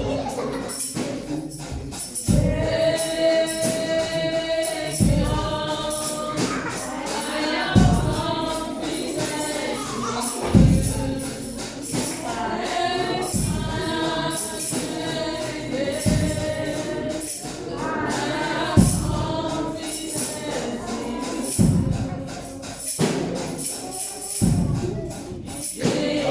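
Gospel praise song: a congregation singing in chorus over a steady beat, with tambourine jingles and a bass drum.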